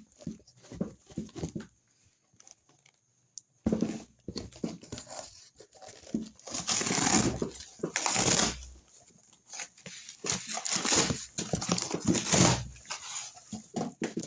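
Packaging being torn open and crinkled by hand, in irregular rustling bursts, with a short quiet pause about two seconds in and the loudest tearing in the middle and later part.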